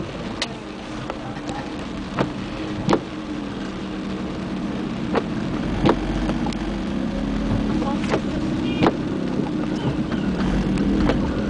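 Car engine running at low speed, heard from inside the cabin, growing slowly louder, with sharp clicks or taps about once a second.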